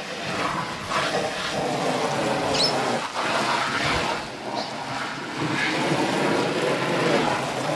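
Water spraying steadily from a garden hose nozzle onto a canvas swag, soaking the canvas to season it so the fabric swells and seals.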